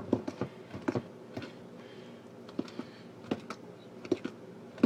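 A mixing utensil clicking and tapping irregularly against a mixing bowl as thick brownie batter is stirred by hand.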